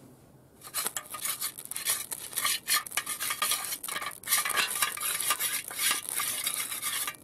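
Magnesium swarf being stirred and scraped around a small metal tin with a tool as it burns: quick, busy rattling scrapes and clinks that start about half a second in.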